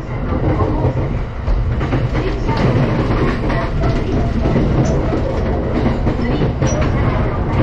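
Running noise of a JR East Tokaido Line electric commuter train heard from inside the car: a steady rumble of the wheels on the rails, with scattered clicks over the track.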